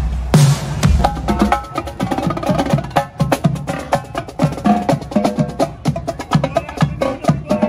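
A heavy-bass electronic music track cuts off about a second and a half in, giving way to a trio of marching snare drums playing a fast cadence of many quick, crisp strokes.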